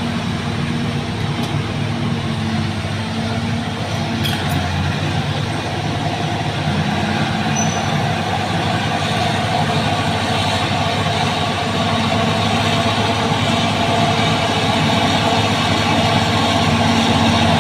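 Diesel engine of heavy earthmoving machinery running steadily under load, its note shifting a few times as the machine works.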